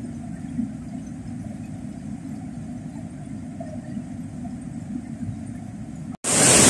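Steady low rush of a swollen, fast-flowing river. A little over six seconds in, the sound cuts out for an instant and a much louder, hissing rush of noise takes over.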